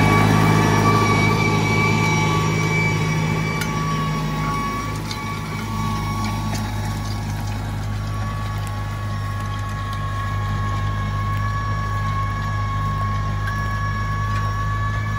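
Engine of a New Holland TR6.120 4x2 tractor running steadily under load while it pulls an Ünlü tillage implement through stubble, with a steady high whine over the engine hum. It gets a little quieter after about five seconds.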